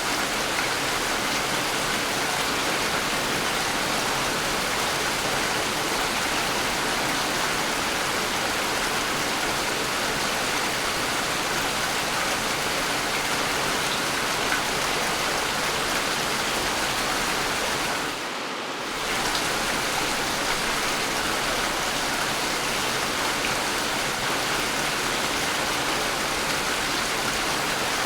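Steady, heavy rain falling. It keeps an even level throughout, apart from a brief dip about two-thirds of the way through.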